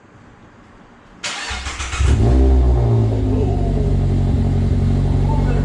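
Mazda ND MX-5 Miata's four-cylinder engine starting with no muffler fitted: a second of starter cranking, then it catches about two seconds in, flares up briefly and settles into a steady, loud idle.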